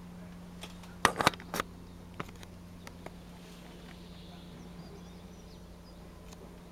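A steady low hum, broken about a second in by a quick cluster of sharp clicks and knocks, with a few fainter single clicks afterwards.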